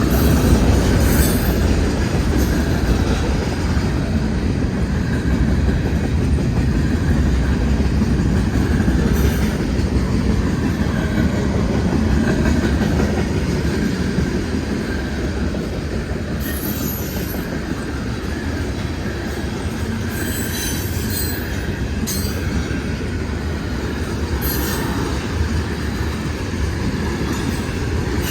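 Freight train cars rolling past: a steady rumble of steel wheels on rail, with brief high squeals and clicks from the wheels now and then.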